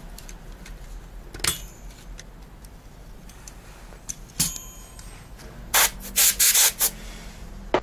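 Hands-on PC hardware handling: light clicks as the Intel stock cooler comes off the motherboard. About four and a half seconds in, the CPU socket's metal retention lever and load plate are released with a sharp snap that rings briefly. Then comes the loudest part, a quick run of crinkles from clear plastic being handled.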